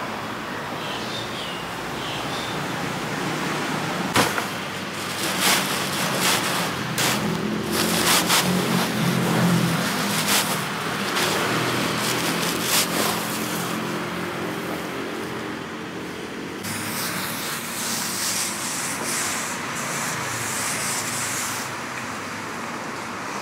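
Road traffic passing close by, with one vehicle's engine drone swelling and fading through the middle. Several sharp clicks and knocks come over it.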